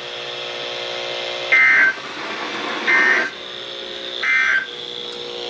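NOAA Weather Radio SAME End-of-Message data tones, three short bursts of digital warbling about a second and a half apart, with a faint steady hum between them. They signal the end of the severe thunderstorm warning broadcast.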